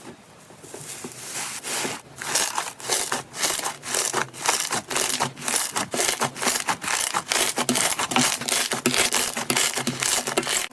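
Slime being squeezed and worked by hand, a fast, dense run of crackling, popping clicks that grows louder about two seconds in.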